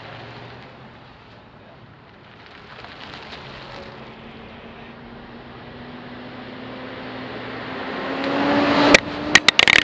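A semi truck's engine grows steadily louder as it pulls up close, its tone rising slightly. Near the end come several sharp knocks, like the camera being picked up off the gravel.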